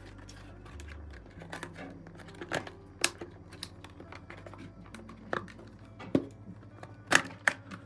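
Plastic retaining clips of a Honda Civic instrument cluster's clear lens clicking and snapping as the lens is unclipped from its housing: a string of irregular sharp clicks, the loudest two close together near the end.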